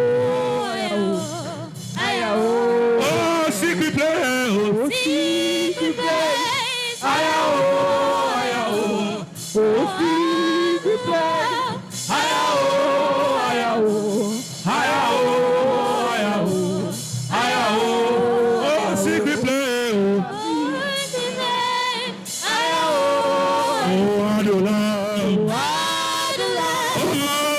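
Gospel worship singing: a voice sings long, sliding, melismatic phrases one after another, with brief breaks between them.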